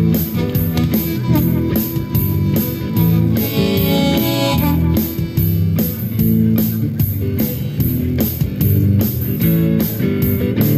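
Instrumental break in a blues song: electric guitar, a Telecaster-style solid-body, played over a steady beat and bass line, with a bright held note about four seconds in.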